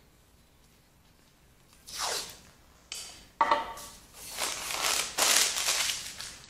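Blue painter's tape being pulled off the roll and wrapped around a glass bottle, several ripping pulls starting about two seconds in.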